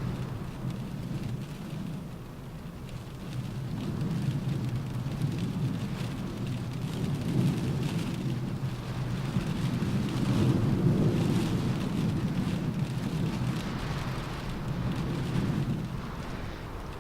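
Rain pattering on a car roof while wind gusts around the car, a low rumble that swells and eases in slow waves and is loudest about two-thirds of the way through.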